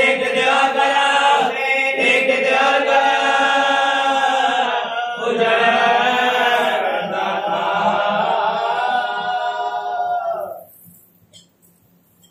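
A man chanting a devotional recitation in long, drawn-out melodic phrases with short breaks for breath. The chanting stops about two seconds before the end.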